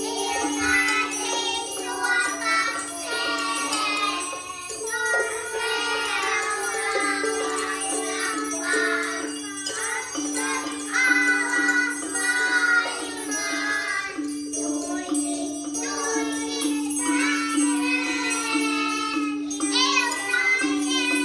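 A group of young children singing a song together while striking triangles and small chime bars. A low accompaniment note repeats in even pulses underneath.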